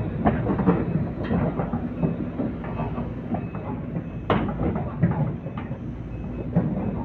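Excavator's diesel engine running while its steel crawler tracks clank and knock as it moves onto the tilted deck of a lowboy truck, with one louder metal clank about four seconds in.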